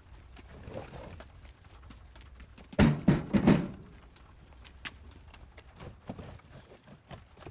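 Three quick clunks about three seconds in, as of objects being knocked or set down, with faint clicks before and after.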